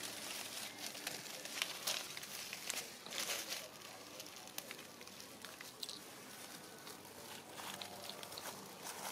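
Dry fallen leaves crackling and rustling under moving monkeys, with scattered sharp clicks and a louder stretch of rustling about two to three seconds in.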